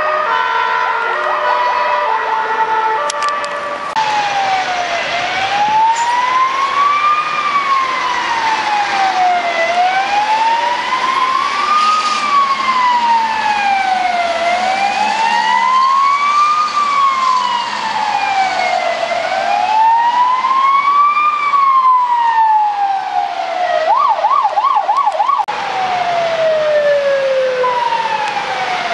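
Emergency vehicle sirens sounding. First comes a stepped multi-tone pattern, then a slow wail rising and falling about every four and a half seconds. Near the end there is a brief fast yelp, followed by repeated falling sweeps.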